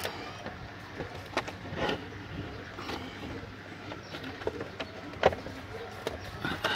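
Plastic case of an 11-band portable radio being handled and pressed shut, with scattered clicks and knocks as the parts are pushed and shifted into place, the loudest near the start and about five seconds in. The case is being tried for fit over a larger replacement power transformer.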